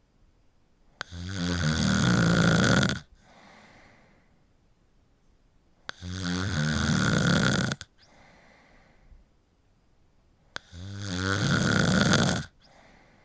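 A sleeping person snoring: three loud snores about five seconds apart, each lasting about two seconds with a fluttering rattle. Each snore is followed by a softer, breathy sound.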